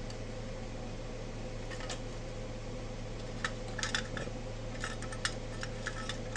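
Light clicks and clinks of small hard parts being handled on an opened piece of electronic test equipment, mostly in the second half, over a steady low electrical hum.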